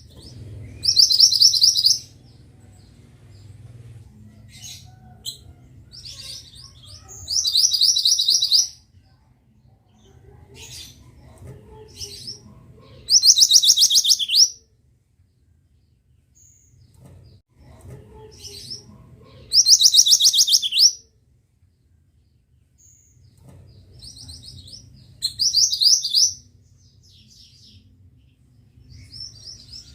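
A mantenan bird singing: a fast, high, rattling trill about a second and a half long, falling slightly in pitch and repeated about every six seconds, with softer chirps between. This monotonous song is the kind kept as a masteran, a tutor recording for teaching other songbirds.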